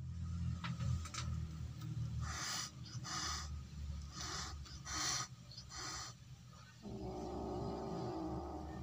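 Feral kitten hissing five times in quick succession, short sharp hisses about a second apart, the defensive warning of a wild, fierce kitten at a reaching hand. A steady rushing noise sets in near the end.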